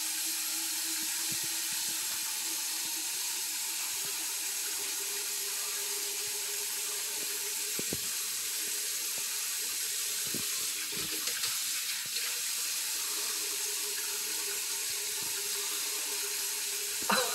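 Steady hiss of a bathroom tap running into the sink, with a few faint clicks.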